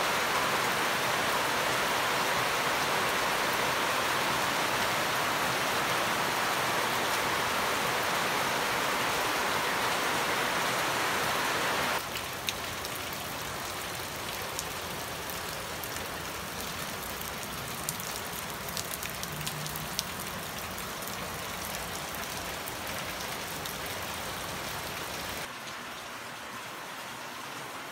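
Steady heavy rain falling, an even hiss. About twelve seconds in it drops in level, with scattered single drops tapping, and near the end it turns quieter, heard from indoors beside a window.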